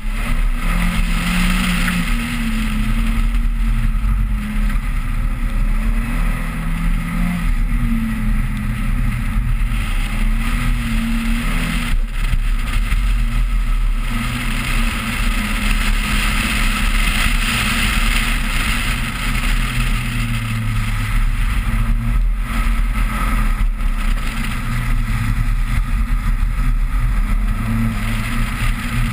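Toyota Celica GT's 1.8-litre four-cylinder engine driving hard, its pitch rising and falling repeatedly with the throttle and gear changes. A steady rushing hiss from wind and the wet road runs under it.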